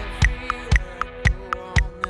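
Band music in an in-ear monitor mix: a metronome click track ticking about four times a second, alternating a higher and a lower click, under sustained held chords.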